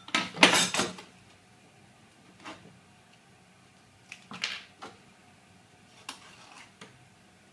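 Handling sounds of thin steel trunking lid pieces being set down and shifted on a wooden workbench: a few short clatters and knocks, the loudest cluster about half a second in, then smaller clicks spread through the rest.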